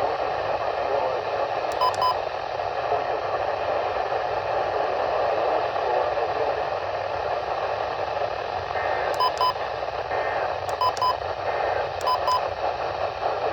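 Steady radio static hiss from a receiver tuned to an alert broadcast, with short double beeps about two seconds in and three more near the end.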